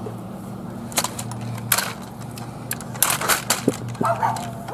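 Scattered clanks and rattles, a few sharp clicks in a row, from a plastic garden cart being pulled over grass and an aluminium walker being moved alongside it, over a steady low hum.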